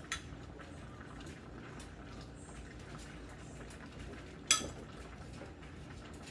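Metal soup ladle clinking against the dishes as soup is ladled from a steel pot into a ceramic bowl: a light click at the start and a sharp one with a brief ring about four and a half seconds in.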